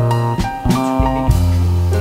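Background music: a guitar-led instrumental with bass and drum hits.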